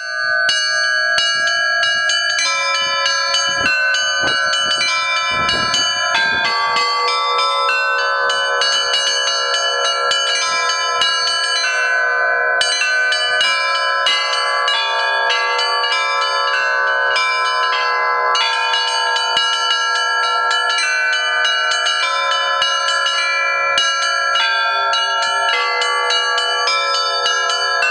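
Church bells ringing together in a continuous peal: many bells struck in quick, overlapping succession, each stroke leaving a long ringing tone.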